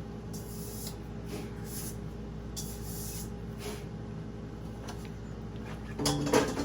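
Several short hissing spritzes of an aerosol cooking spray, each lasting under a second, followed by a louder clatter near the end.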